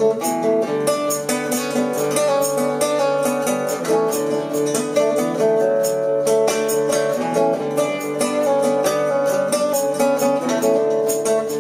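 Yamaha APX500 acoustic guitar played through a Fender Acoustic 100 amplifier, picking an instrumental passage of quick plucked notes over ringing chords.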